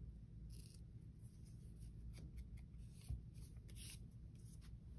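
A few faint, crisp snips and paper rustles: scissors trimming a strip of paper shorter.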